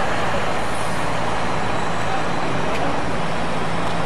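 Heavy diesel machinery running steadily, a constant low hum under a dense wash of noise, typical of the mobile crane's engine working during the lift of a railway coach.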